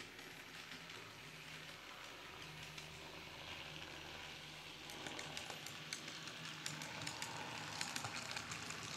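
N scale model train running along the track: a steady whir from the locomotive's motor and wheels, with quick clicks over the rail joints that get denser and louder about five seconds in.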